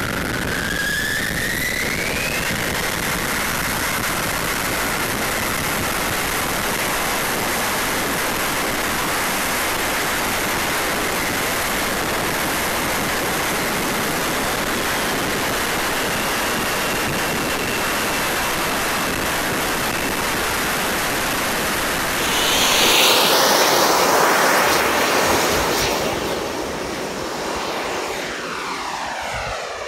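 Jets-Munt M70XBL model jet turbine of an RC L-39 winding up with a rising whine, then a steady roar of turbine and rushing air heard from on board in flight. About three-quarters of the way through it swells louder and shifts in pitch as the jet passes close, then fades with a falling, sweeping tone as it flies away.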